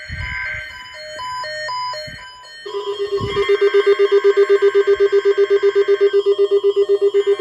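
Electronic alert tones: a quick stepping series of beeps switching between pitches, then about two and a half seconds in a low ringing tone that pulses very fast, like a phone ringer. A few dull low thumps sound underneath.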